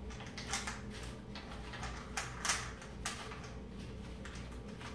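Scattered light clicks and knocks of a rifle's retractable stock and one-point sling hardware being handled, about eight in the first three and a half seconds, over a faint low hum.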